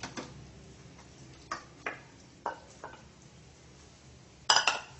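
A spoon tapping and scraping raw chicken pieces out of a ceramic bowl into a stainless steel pan: a few separate light clicks and knocks. About four and a half seconds in comes a louder clatter of several quick knocks of utensils and cookware.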